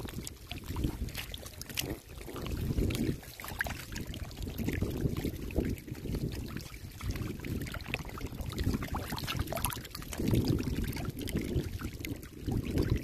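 Many fish thrashing and splashing in shallow muddy water: irregular sloshing with scattered sharp splashes over uneven surges of low rumble.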